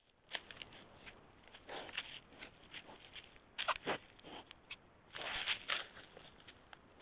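Close rustling, scraping and knocking as a wild mammal noses at a trail camera and moves over dry leaf litter right beside it. It comes as irregular crackles with a sharp knock a little before the middle and a louder cluster of scuffs about three-quarters of the way through.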